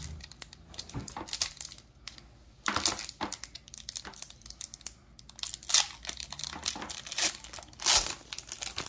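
Foil wrapper of a Pokémon trading card booster pack being torn open and crinkled by hand: irregular crackling rustles in short bursts, the loudest near the end.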